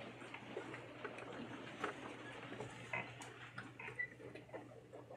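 Scattered faint clicks, knocks and rustles of a small congregation getting to its feet in a quiet room, over a low steady hum.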